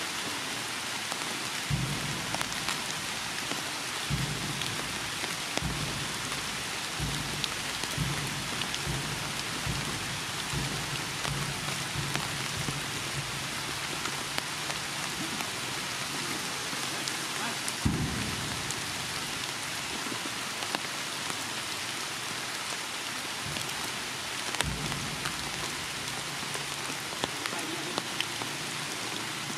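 Heavy rain falling steadily, a dense even hiss, with occasional short low thumps scattered through it, the strongest about 18 seconds in.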